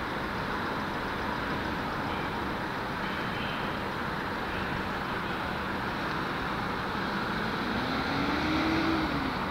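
Steady road traffic noise. Near the end one vehicle engine rises and then falls in pitch as it speeds up and eases off.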